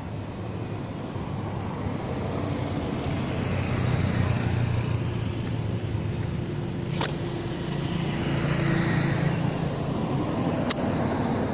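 A motor vehicle running and passing, a steady low rumble with a faint engine tone that swells twice. A sharp click comes about halfway through.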